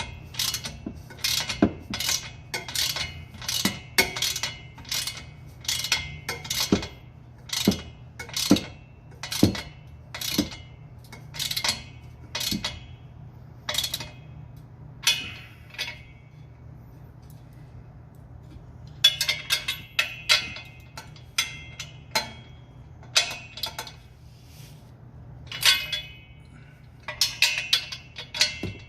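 Hand wrench working the 11/16-inch bolts on a car's exhaust flange: a run of sharp metallic clinks about every half second to a second. The clinks stop for a few seconds past the middle, then come back in quick clusters.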